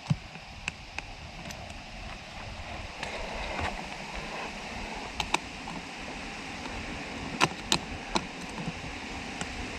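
Scattered, irregular metal clicks and taps from a wrench tightening the bolts of a brass tapping saddle on a PVC water line, over a steady low rushing background.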